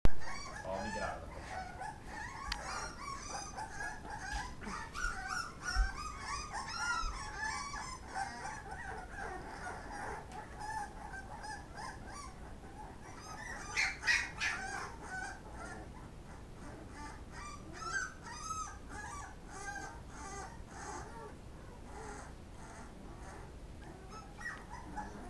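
A litter of pitbull puppies whimpering and squealing as they crowd around a food tray, many short high-pitched cries overlapping, busiest in the first ten seconds and thinning out later. About 14 seconds in there is a louder, sharper cry.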